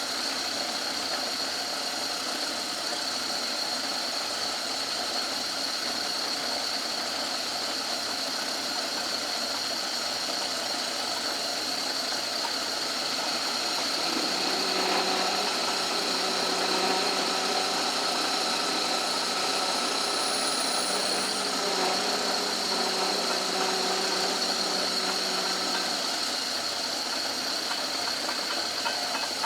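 Old Myford lathe running and taking a light cut, with a steady high whine throughout; a lower hum joins about halfway through and stops a few seconds before the end. The headstock bearing has some play, which limits the lathe to light cuts.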